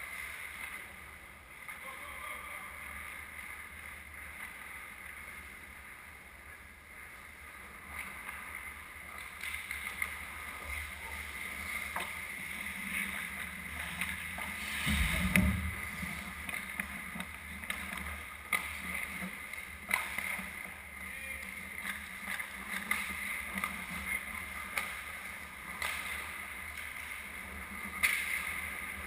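Ice hockey rink sounds: skates scraping on the ice, with scattered sharp clacks of sticks and puck and a heavier thud about halfway through.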